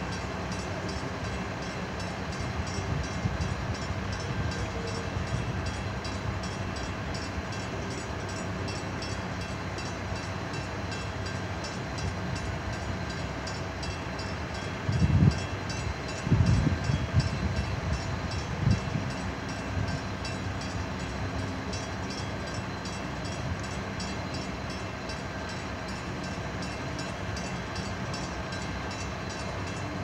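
Drawbridge machinery running as the bascule leaf lowers, a steady low mechanical rumble. A few short low thumps come about halfway through.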